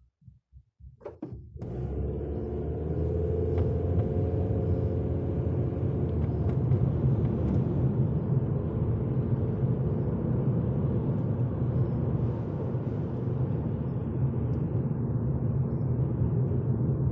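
Car driving: steady low engine and road rumble that fades in about a second in, with a faint engine tone rising slightly over the next few seconds.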